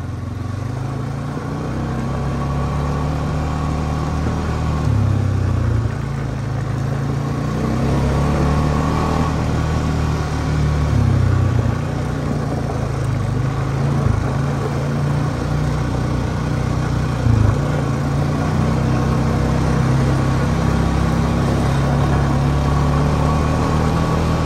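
Honda Rancher ES ATV's 420 cc single-cylinder engine running under way, its pitch rising and falling as the throttle and gears change. There is one short knock about two-thirds of the way through.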